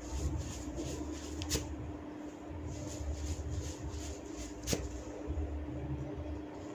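Head massage: hands rubbing and scratching through the hair with a steady rustle, and two sharp cracks, one about a second and a half in and one near five seconds.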